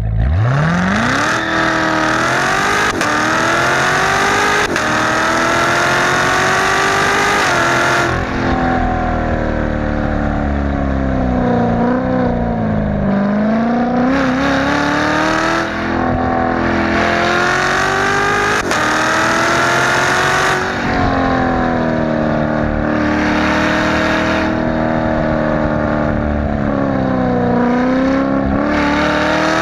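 Chevrolet C7 Corvette Z06's supercharged V8, with an X-pipe exhaust, accelerating from a near standstill. The revs sweep up steeply at first, then climb and drop back several times as the car gains speed through the gears, easing off twice along the way.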